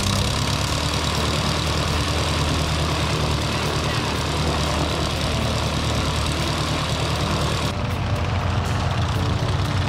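Bowers Fly Baby biplane's 85 hp Continental four-cylinder engine running on the ground with the propeller turning, a steady low drone with a hiss over it.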